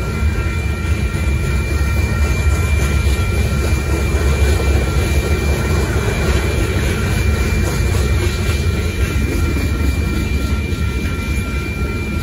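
Freight train cars rolling past at a grade crossing: a steady low rumble of wheels on rail with a noisy clatter above it, and a thin, steady high-pitched tone throughout.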